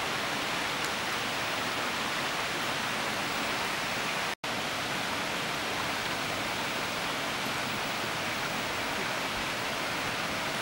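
Steady, even hiss of rushing water, which drops out for an instant about four seconds in.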